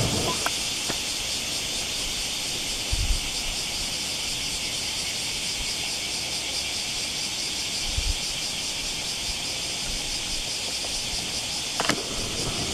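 Chorus of cicadas: a steady, dense high buzz with a faint fast pulsing. A few brief low bumps come about three, eight and twelve seconds in.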